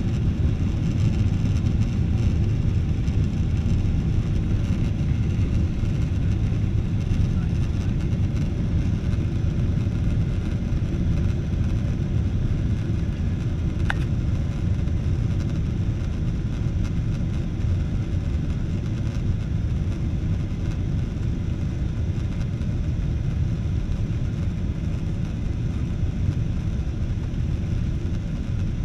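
Steady low rumble of a jet airliner heard from inside the cabin as it taxis, the engines running at low power. One short sharp click about halfway through.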